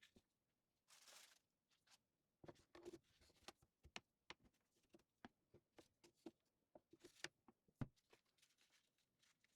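Light clicks and knocks of cutlery and small kitchen items being picked up and set down while a drawer is sorted, after a short rustle about a second in. The loudest knock comes near the end.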